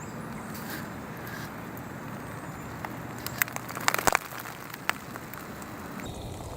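Steady outdoor hiss, broken by a quick cluster of sharp crackles and snaps about three to four seconds in, loudest near four seconds, with one more snap just before five seconds.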